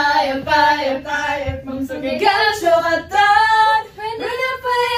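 A young woman singing unaccompanied in short, held phrases in an elevator. Her pitch climbs higher about two seconds in.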